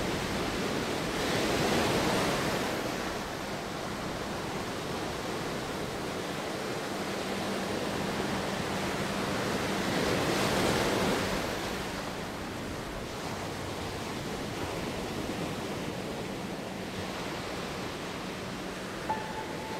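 Steady rush of ocean surf, swelling twice as waves wash in. A few music notes begin near the end.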